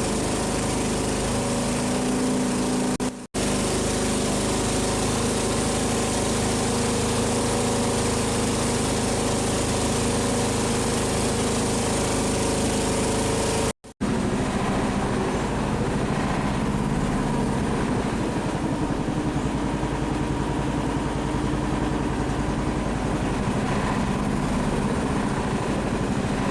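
Longtail boat engine running steadily under way, a continuous motor drone. The sound drops out for an instant twice, about three seconds in and near the middle.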